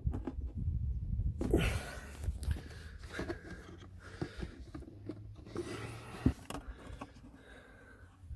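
Plastic trim clips and a car's interior panel being pushed and handled, with rustling, small scattered clicks and one sharper click about six seconds in, over a low rumble of handling noise.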